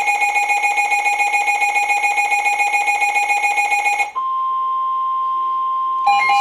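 Weather radio alert: a rapidly pulsing two-tone alarm sounds for about four seconds and cuts off, then the steady single-pitch NOAA Weather Radio warning alarm tone follows, the signal that a warning is about to be broadcast. Near the end a beeping alarm starts up again over the tone.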